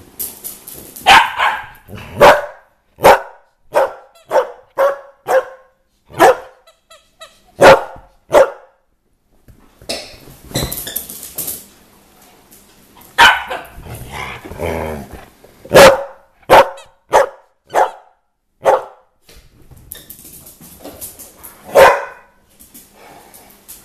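Dogs barking in excited play: about twenty short, sharp barks at irregular intervals, with a longer rough low stretch about two-thirds of the way through.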